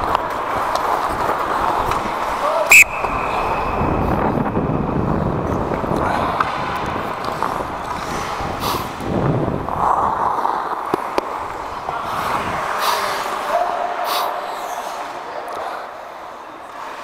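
Ice hockey skates scraping and carving on the rink ice, with sticks and puck clacking now and then. A loud sharp crack comes about three seconds in, followed by a brief ringing.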